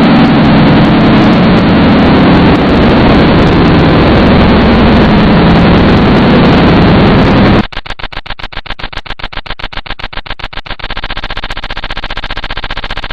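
Very loud, distorted digital static from an edited audio-crash glitch effect. About seven and a half seconds in it breaks into a rapid stutter of about ten clicks a second, which settles into a steadier buzz near the end, like a crashed audio loop.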